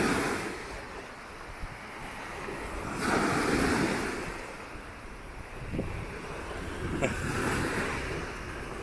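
Small surf waves breaking and washing up a sandy beach, swelling in three surges about three to four seconds apart.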